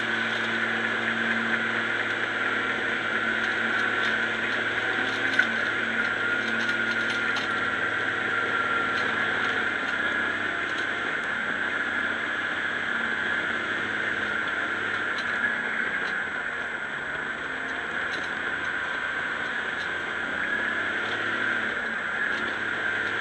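Diesel engine of a tracked New Holland TM130 trail-grooming tractor running steadily under load, with a constant high whine over the engine note. The engine note shifts about ten seconds in.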